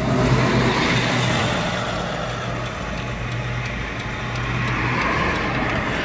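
Road traffic passing close by, a steady rush of tyres and engines that swells just after the start and eases off through the middle, with a low steady hum under it.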